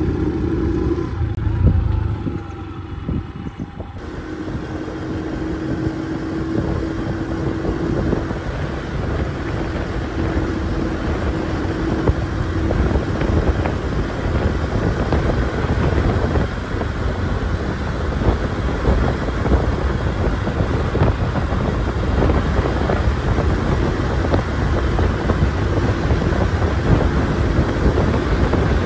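50cc moped engine running under way, with wind noise on the microphone. Quieter for the first few seconds, then louder and steady as the bike picks up speed.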